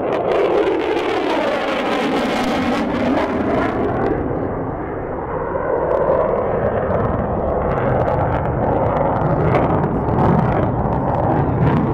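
F-22 Raptor fighter's twin jet engines roaring loudly as the jet flies past, with a sweeping, phasing tone in the first few seconds, then a steady roar with some crackle as it turns away.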